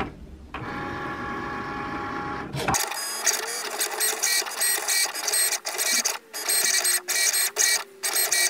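Cricut Maker cutting iron-on vinyl: its motors whir in short stop-start runs as the blade carriage and mat shuttle back and forth. The first couple of seconds hold a steadier, even motor whine that breaks off abruptly.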